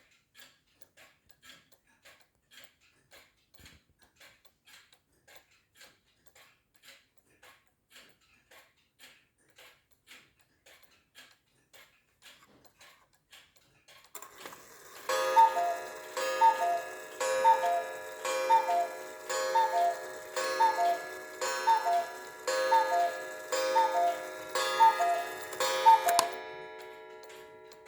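Vintage cuckoo clock's pendulum movement ticking steadily, somewhat under two ticks a second. About halfway through, the striking train whirs into motion and the clock calls about a dozen times, one per second, each a two-note high-then-low cuckoo from its bellows pipes with a ringing strike, the ringing dying away after the last call.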